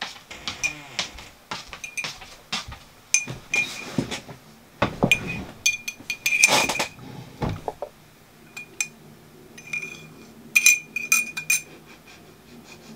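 A metal spoon stirring sugar into hot tea in a ceramic mug, clinking against the sides again and again with a short ringing note on each hit. A louder, busier stretch of knocks and handling noise comes in the middle.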